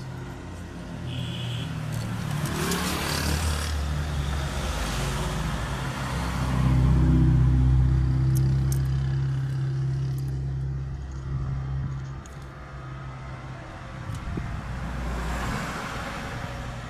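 A motor vehicle's engine running with a low hum that grows to its loudest about halfway through and then eases off. Bursts of hiss come near the start and again near the end.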